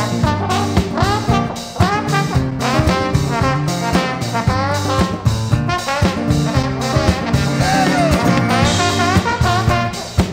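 Live trombone solo with sliding, bending notes over acoustic guitar accompaniment, in an instrumental break of a swing-blues song.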